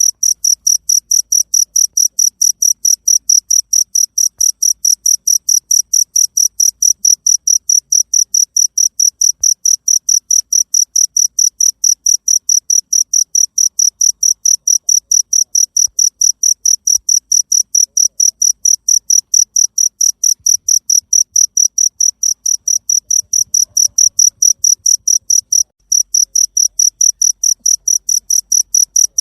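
Cricket chirping loudly in a fast, even, unbroken rhythm of high-pitched pulses, dropping out for a split second near the end.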